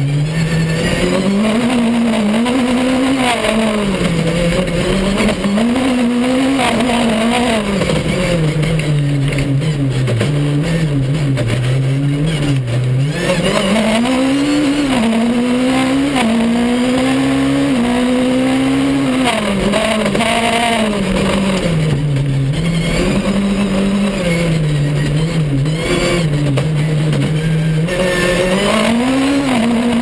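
Honda S2000 four-cylinder engine of a four-wheel-drive off-road rally car, heard from inside the cabin. It revs up and drops back again and again as the driver accelerates, shifts and lifts through the stage, over steady noise from the car on the dirt track.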